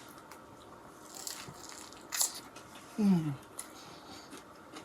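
Close-up mouth sounds of someone eating a bacon cheeseburger and chips: chewing with small wet clicks and a sharper crunch about two seconds in. About three seconds in comes a short, falling vocal hum.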